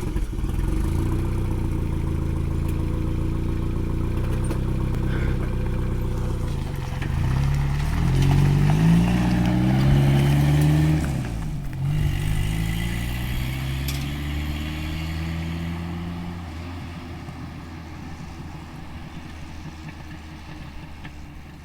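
Toyota 22R-TE turbocharged four-cylinder engine running through a T3/T4 turbo, high-flow cat and muffler, with a brrrrr note that comes largely from an exhaust leak at the wastegate. It runs steadily, is revved up in two rising sweeps about a third of the way in, drops back sharply, then settles and grows fainter near the end.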